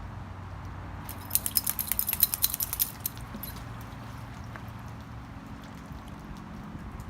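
A quick rattling run of light clicks or jingles, starting about a second in and lasting about two seconds, over a steady low hum.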